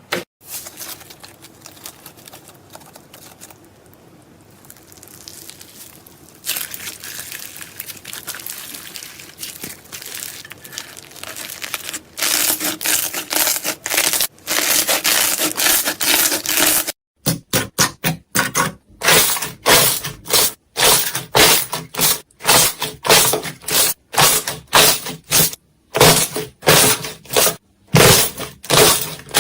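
Slime being handled by hand for ASMR: squeezed, stretched and pressed. The handling grows louder in the middle, and past the middle it becomes a regular run of short presses, about two a second.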